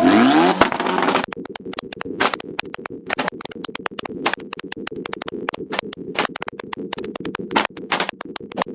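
Honda CRX engine revved hard, its pitch climbing in the first second. It is then held at high revs with rapid, irregular cracking and popping that makes the sound harsh and broken up.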